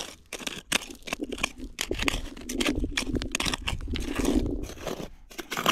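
Small hand shovel digging into soil in repeated scrapes and crunches, digging out a metal-detector target.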